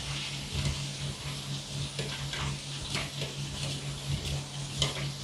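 Soft fresh mozzarella being rubbed down a stainless-steel box grater, a faint rasping scrape with each stroke, about two strokes a second, over a steady low hum.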